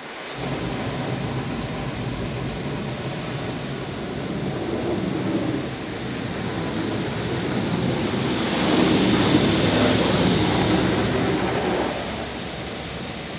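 Water jets of an automatic touchless car wash spraying the car, heard from inside the cabin as a steady rush of water against the body and windshield. It sets in suddenly, grows louder about two-thirds of the way through, then eases off near the end.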